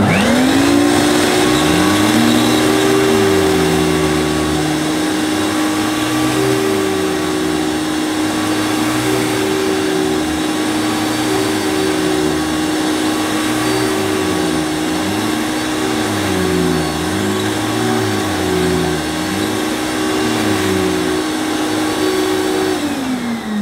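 Hoover Celebrity canister vacuum cleaner switched on at low speed on the carpet setting, its motor spinning up to a steady whine with the Quadriflex Powermatic power nozzle's brush running. Underneath, a lower hum rises and falls in pitch about every two seconds as the nozzle is worked over the carpet. Near the end it is switched off and the motor winds down.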